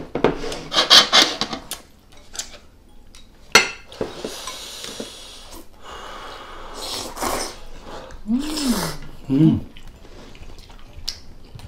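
Eating sounds from a noodle mukbang: Chapagetti black-bean noodles slurped, with chopsticks, a spoon and tongs clicking against glass bowls and a metal pan, and one sharp clink about three and a half seconds in. A short rising-and-falling hum comes near the end.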